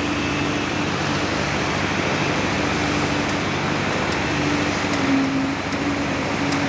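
Eicher transit mixer truck's diesel engine running steadily, with an even mechanical hum.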